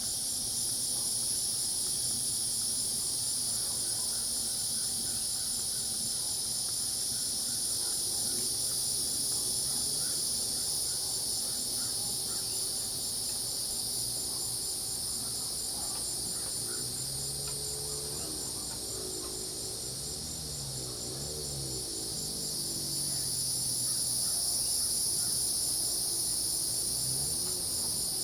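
Night chorus of crickets and cicadas: a steady high-pitched insect drone with a fast pulsing cricket trill running through it. A little past halfway, low wavering frog calls come in for several seconds, and again briefly near the end.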